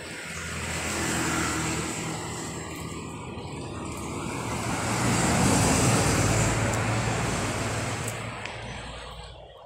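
Motor vehicle traffic passing close by on the road, engine and tyre noise swelling twice and loudest about six seconds in, then fading.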